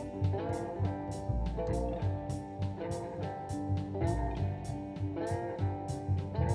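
Background music: guitar playing sustained notes, some of them bending in pitch, over a steady drum beat and bass.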